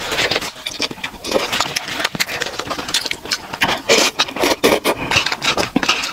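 Close-up slurping and chewing of instant noodles picked up on a clip-on microphone: wet sucking, smacking and crackling mouth sounds, louder in a run of slurps about four seconds in.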